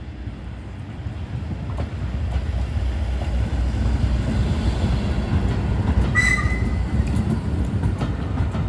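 Train running on rails: a steady low rumble with scattered clicks and a brief high-pitched squeal about six seconds in.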